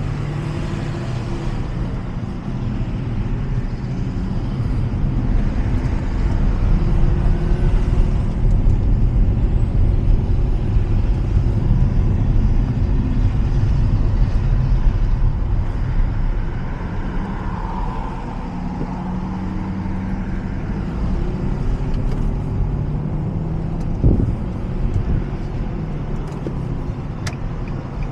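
Car engine and road noise heard from inside the cabin while driving, the engine note rising and falling as the car pulls away and speeds up. A single sharp knock about three-quarters of the way through.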